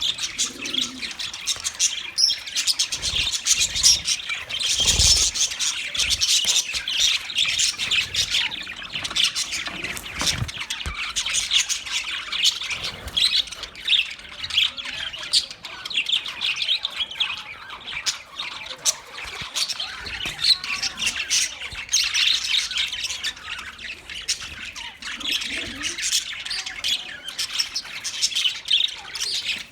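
A group of budgerigars chirping, chattering and squawking without pause, many short warbling calls overlapping.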